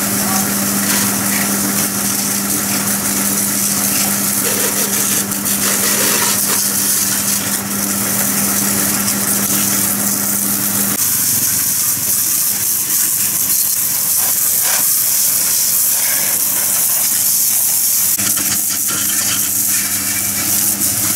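Pressure washer spraying a dirty motorbike: the spray jet hisses steadily while the machine's motor hums underneath. The hum drops out for several seconds about halfway through and comes back near the end.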